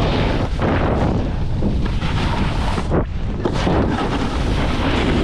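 Wind buffeting the microphone of a camera carried along on a fast downhill run: a loud, steady rush with heavy low rumble, broken by a few sharp knocks about half a second, a second and a half, and three seconds in.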